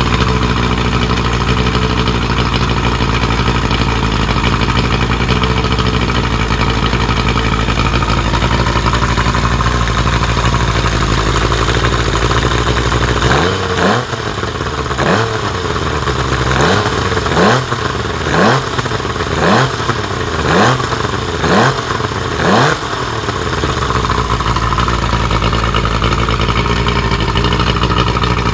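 Freshly rebuilt 1975 Evinrude 70 HP three-cylinder two-stroke outboard running on flushing muffs. It runs steadily, then about halfway through it is blipped about nine times, roughly once a second, each a quick rise in revs, before settling back to a steady run.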